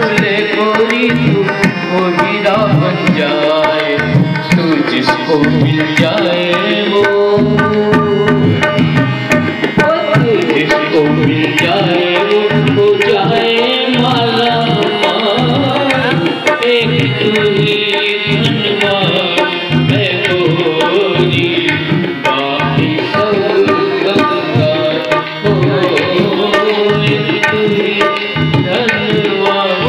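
Live ghazal music: tabla drumming a steady rhythm under a sustained melodic instrumental accompaniment.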